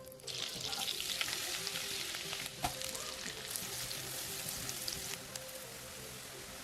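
Food frying in hot oil in a pan: a dense sizzle with crackles that starts suddenly just after the start, as food goes into the oil, with a sharp clack about two and a half seconds in.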